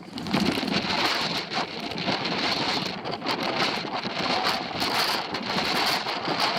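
Blizzard wind buffeting an action camera's microphone: a steady, loud rushing noise that flickers with gusts.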